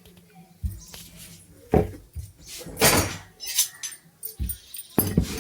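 Irregular clinks, taps and knocks of small metal parts and tools being handled, with scraping swishes between them.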